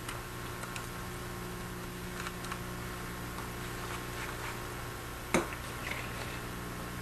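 Needle-nose pliers working a small circuit board out of an endoscope's video connector: a few light clicks and taps, with one sharper click about five seconds in. A steady low electrical hum runs underneath.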